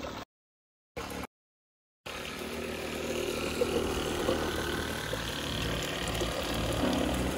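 The boat's own freshwater pump, refitted to pump flood water out of the hull, running steadily as water passes through its hoses. The sound cuts out to silence twice in the first two seconds.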